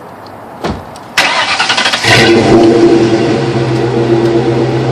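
A short thump, then the Mustang's 4.6 L two-valve V8, fitted with a catless Pypes Off Road X-pipe and Flowmaster mufflers, is cranked about a second in. It fires and settles into a loud, steady idle.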